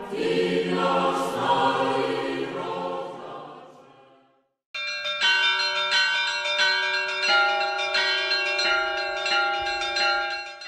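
A choir singing fades out over the first four seconds. After a brief gap, bells ring in a quick run of overlapping strikes, each tone ringing on.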